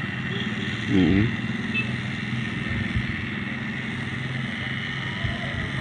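A small engine running steadily at an even pitch. About a second in, a short vocal sound rises above it.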